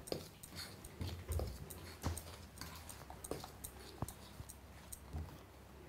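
A metal spoon stirring rice flour in a stainless steel plate, working in hot oil: faint, irregular scrapes and light clicks of the spoon against the metal.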